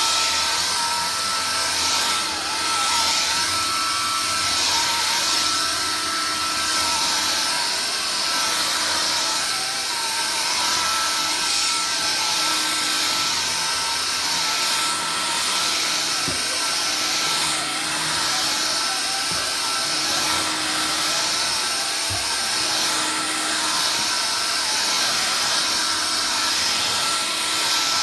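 Vax Air Cordless Lift cordless upright vacuum cleaner running steadily: a continuous rushing hiss with a thin, constant high whine over it.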